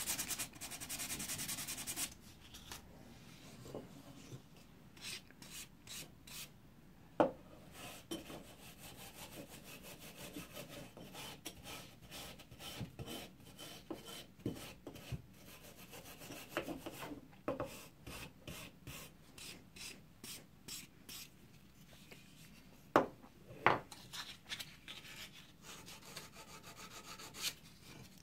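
Hand-sanding rust off an old steel tool blade with an abrasive on a wooden block. It begins with about two seconds of steady scrubbing, then goes on as many short, scratchy strokes. A few sharp knocks fall near 7 seconds and again twice about 23 to 24 seconds in.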